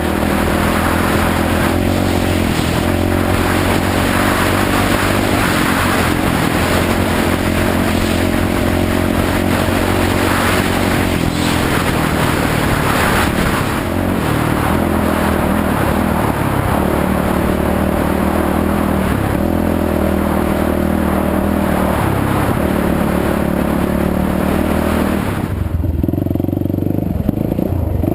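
Yamaha WR450F's single-cylinder four-stroke engine running steadily, freshly rebuilt with a welded crankcase, new piston and rings. Near the end the sound changes abruptly, with the hiss dropping away.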